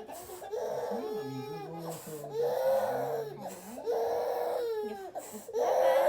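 A one-year-old girl crying hard in about four long wails, each around a second, with short gasps between, as she is given a vaccination injection.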